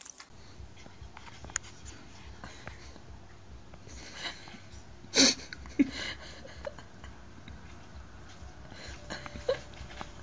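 A dog's short, breathy snuffles up close, with one loud sharp burst of breath about five seconds in and a smaller one just after.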